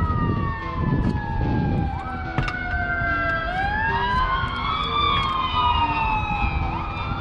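Emergency vehicle sirens wailing, several overlapping tones slowly sliding up and down, over a steady low rumble. A few sharp metal clicks come from a wrench being worked on nuts.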